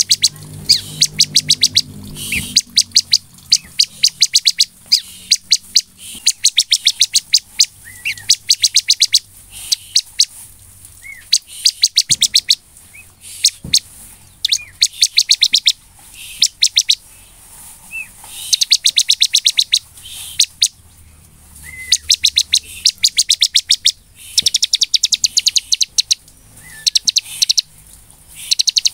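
Bar-winged prinia (ciblek) in full song: bursts of rapid, sharp, high chips about a second long, repeated every second or two, with short single slurred notes between.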